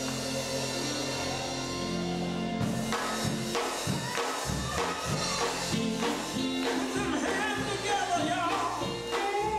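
Live gospel quartet music from an electric band: guitars and bass hold a chord, then drums and percussion come in about three seconds in, and men's voices sing over the band.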